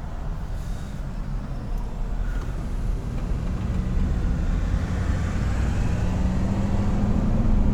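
Ford E350's 5.4-litre Triton V8 and road noise heard from inside the cab while driving, the engine note rising gradually about three seconds in as the van picks up speed. The owner says the engine is still rumbling a little.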